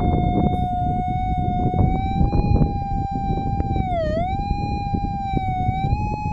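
Minelab Equinox-series metal detector sounding a continuous target tone as the coil passes over buried metal. The tone holds mostly steady, dips in pitch briefly about four seconds in, then rises slightly near the end.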